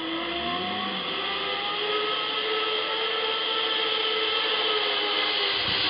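Zipline trolley pulleys running along the steel cable: a steady whir with several slowly bending tones that fades in at the start and grows a little louder as the rider comes in.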